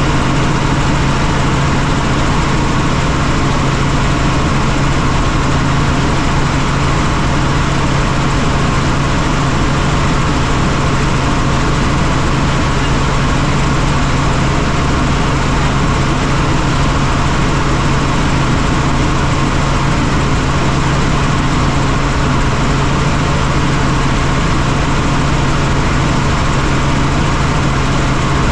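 Helicopter in flight: steady rotor and engine noise with a constant low drone, unchanging throughout.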